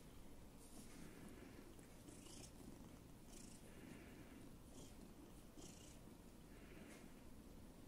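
Domestic cat purring softly and steadily, close up, as it kneads and mouths a hand. Short breathy hisses come every second or so.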